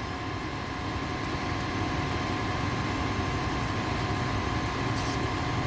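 Vehicle engines idling steadily at a roadside scene, a continuous low mechanical hum.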